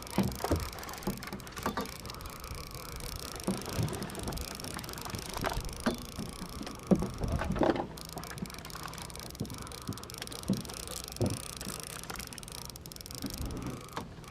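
Fishing boat's engine running steadily on deck, with irregular knocks and thumps throughout, the loudest about seven seconds in.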